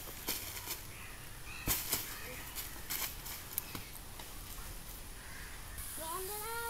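Scattered crackles and light taps of feet and a football on dry fallen leaves. A child's voice calls out near the end.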